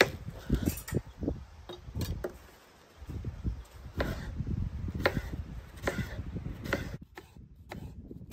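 A series of sharp knocks at uneven intervals, several quick ones near the start and then about one a second.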